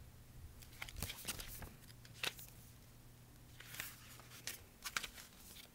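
Pages of a hardcover picture book being handled and turned: faint short paper rustles and crinkles in two clusters, about a second in and again near the end.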